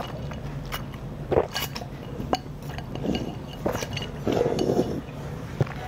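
Udon broth being drunk from a glazed ceramic bowl, in a few short sips and gulps, with several light clinks of chopsticks against the bowl.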